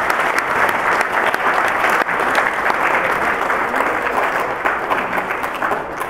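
Audience applauding, dense clapping that fades somewhat over the last couple of seconds.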